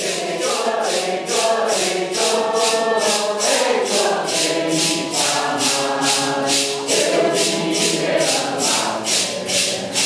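A Santo Daime congregation singing a hymn together in unison, with maracás shaken on a steady beat, about three shakes a second.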